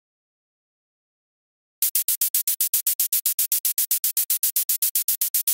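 Synthesized shaker from u-he Hive's "Shakers Dub" preset, playing an even run of short, bright, hissy hits at about eight a second (sixteenth notes), starting about two seconds in.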